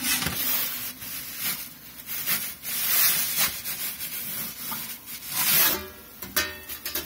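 Metal pizza peel scraping and sliding against a pizza stone and oven rack as a pizza is slid onto it and turned, heard as several rough scrapes in bursts.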